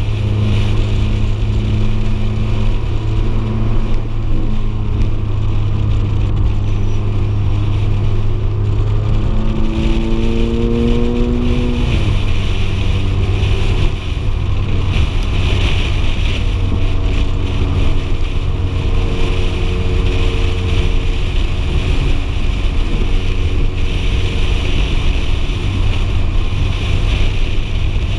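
Ferrari F430 Spider's V8 engine running as the open-top car drives along, with wind noise on the microphone. About ten seconds in, the engine note climbs for a couple of seconds and then drops back.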